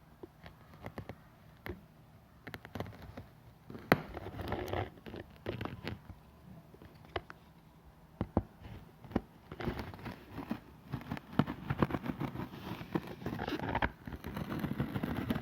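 Packaging being handled and opened by hand: irregular clicks, taps, scrapes and rustling of box and wrapping, busier in the second half.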